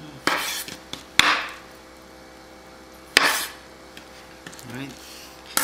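A large kitchen knife slicing through clam meat and knocking onto a cutting board. There are three sharp cuts, each a knock followed by a short scraping slide: the first two come close together and the third about two seconds later.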